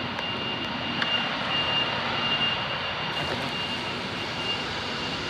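Bus running, with a steady high-pitched whine over its noise.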